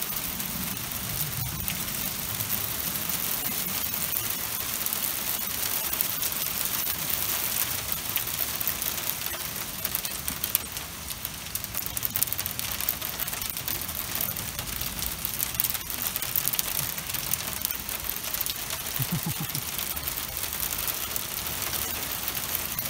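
Rain mixed with small ice pellets pattering steadily on a car's metal hood and windshield: a dense, even patter of fine ticks.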